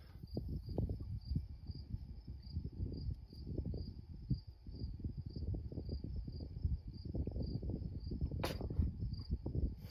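A cricket chirping steadily in a high, even pulse about twice a second, over a low, uneven rumble on the microphone. A single sharp click comes near the end.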